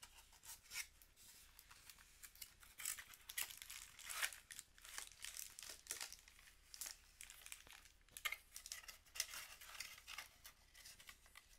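Faint, irregular rustling and crinkling of a cardboard box being opened and a hair dryer in a plastic bag being pulled out of it.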